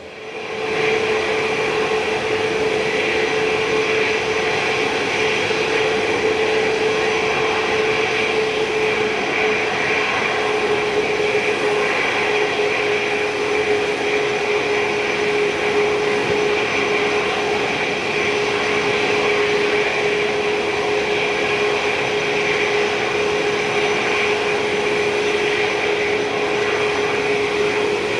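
Boeing 787-9 Dreamliner's jet engines running steadily: an even roar with a constant whine held at one pitch, neither spooling up nor fading.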